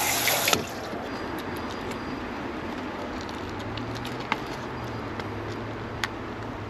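Running tap water that shuts off abruptly about half a second in, leaving a low steady hum broken by two sharp clicks.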